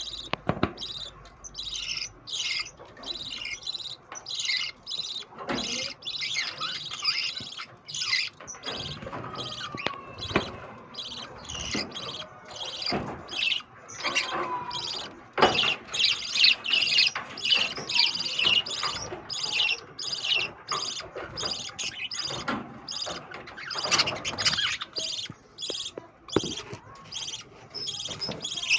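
A colony of caged lovebirds and budgerigars chirping and chattering, many birds calling at once in a dense stream of short, high calls.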